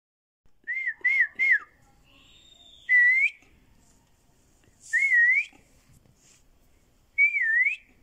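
Clear whistled notes that waver in pitch: three short quick whistles about a second in, then three longer whistled phrases about two seconds apart, each rising at its end.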